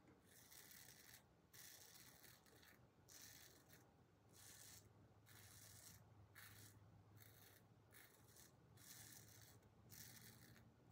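Faint scraping of a Kampfe Bros Star single-edge safety razor cutting through lathered stubble on the neck, in short strokes about once a second.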